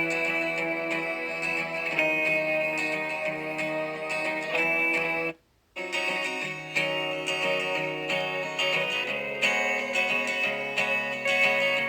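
Background music with a guitar, cutting out completely for about half a second a little past halfway, then carrying on.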